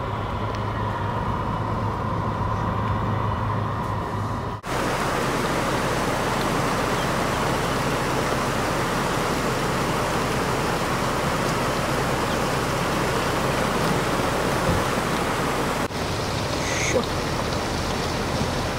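Car engine and road noise heard from inside a vehicle driving along a flooded road. After an abrupt cut about four and a half seconds in, there is a steady even rush of water from a flooded river in torrent. A second cut comes near the end, with a brief high chirp.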